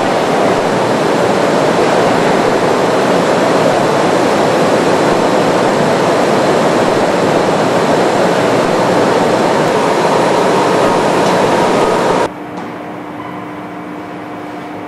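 Loud, steady rushing noise of machinery in a large hangar. About twelve seconds in it cuts to a much quieter steady hum with a few held tones.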